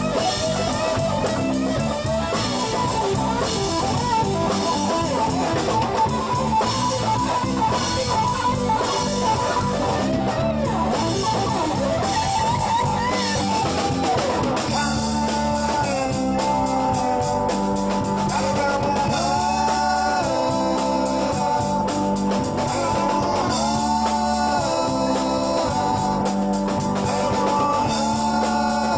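Rock band playing an instrumental section: a lead guitar plays bending, wavering notes over bass and drums. About halfway through, the lead moves to longer held notes.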